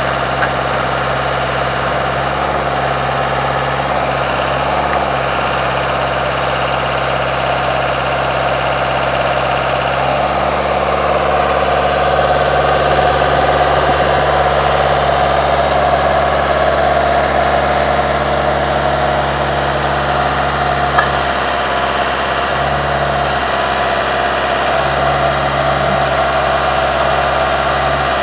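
Vermeer trencher-backhoe's engine running steadily, its low hum shifting in pitch about ten seconds in.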